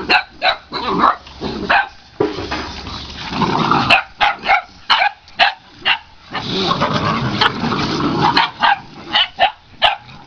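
Boxer puppies barking over and over in short, sharp barks, about two or three a second, with two longer, rougher stretches of sound around three and seven seconds in.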